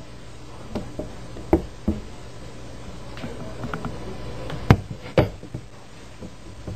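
A series of irregular knocks and clicks against a steady low background hum. The two loudest knocks come about two-thirds of the way through, half a second apart.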